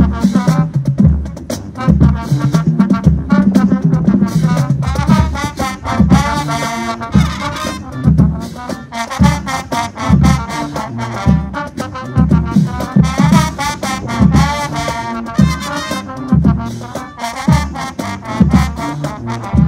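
Marching band playing loud brass-heavy music: trumpets, trombones and sousaphones over repeated heavy drum hits.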